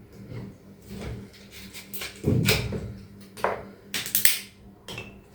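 Kitchen handling noises: a few brief knocks and rustles as things are picked up and moved about, the loudest about two seconds in and about four seconds in.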